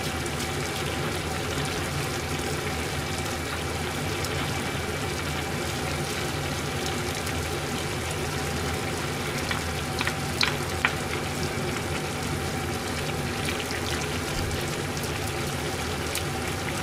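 Sukiyaki broth simmering in a shallow pot on a gas burner, with a ladle scooping broth and pouring it back over the vegetables and beef, over a steady low hum. A few light clicks of the ladle against the pot come about ten seconds in.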